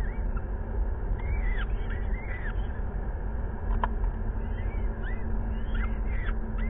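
Peregrine falcon chicks begging as they are fed: repeated thin, arched chirps over a steady low rumble, with a single click about four seconds in.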